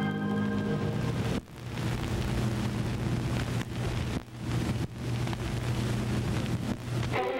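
Steady noisy hiss over a low hum, with no music, dropping out briefly about a second and a half in and twice more around four to five seconds in. Organ music fades out during the first second or so.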